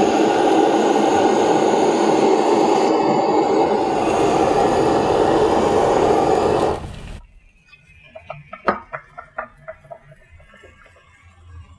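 Handheld butane kitchen torch burning with a steady, loud rushing hiss as its flame sears oiled mushroom slices in a pan. The torch is shut off suddenly about seven seconds in, and faint scattered ticks follow.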